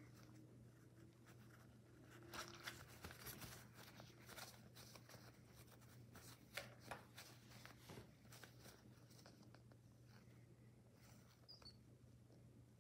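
Faint rustling and soft clicks of hands handling a baby pigeon on a blanket, over a low steady hum. The rustles come in quick irregular bunches in the middle and die away toward the end.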